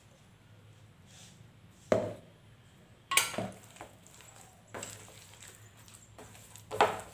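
Hands mixing and kneading a sticky dough of mashed ripe banana, semolina and rice flour on a plate, with four sharp knocks on the plate along the way.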